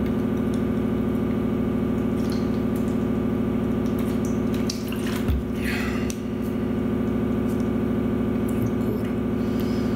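A person drinking water from a plastic bottle, gulping to wash down pills, with a few short swallowing and handling noises about halfway through. A steady low hum runs underneath.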